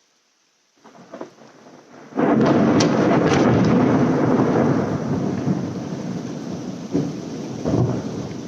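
Heavy rain, then a loud thunderclap about two seconds in that rumbles on and slowly fades, with further rumbles near the end.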